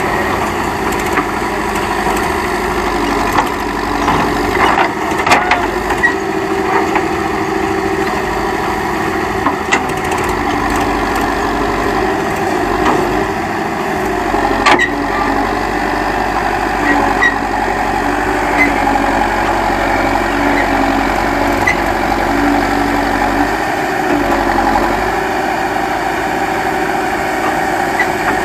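Backhoe loader's diesel engine running steadily, with a few sharp knocks around five seconds in and again near the middle.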